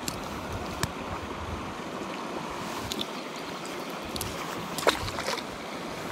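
Steady rush of a small stream running over rocks, with a few short clicks and knocks, the sharpest about five seconds in.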